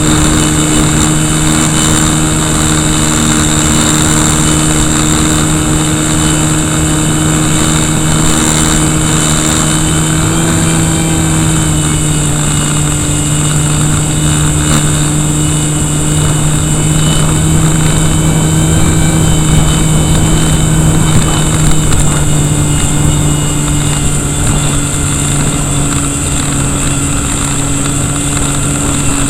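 Electric brushless motor (KV1100, on an 11.1 V battery) and propeller of an RC Cessna model plane running steadily in flight, heard from close beside the motor, with strong wind rushing over the microphone.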